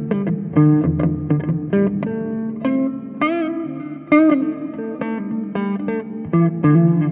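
Epiphone Les Paul Classic Worn electric guitar played with a clean tone: a run of picked single notes and double-stops, with two bent notes shaken with vibrato about three and four seconds in.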